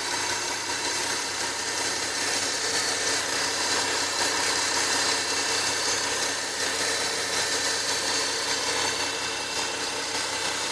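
Nissan 370Z's 3.7-litre V6 engine running steadily, with a whine of several steady high tones over the engine noise: a whine whose cause the owner does not yet know.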